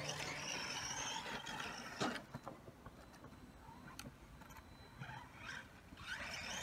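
Faint whine of a 1/10 Maverick Strada SC short-course RC truck's brushless motor, rising in pitch in short bursts as the truck accelerates, about 5 and 6 seconds in. There are a couple of sharp clicks about 2 and 4 seconds in.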